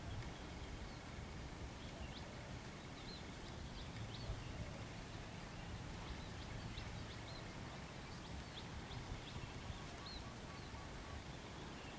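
Short bird chirps repeating over a steady low outdoor rumble.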